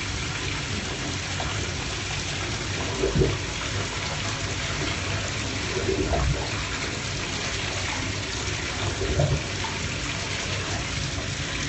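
Water running into a bathtub while a dog is wetted down for its bath, a steady rush with three short louder surges about three seconds apart.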